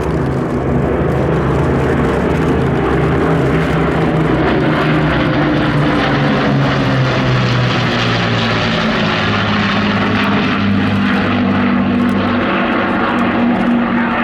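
Avro Lancaster with a Supermarine Spitfire and Hawker Hurricane flying by in formation: the drone of their piston engines and propellers, including the Lancaster's four Rolls-Royce Merlin V12s. The engine note is steady and loud, and its pitch falls about midway as the formation passes.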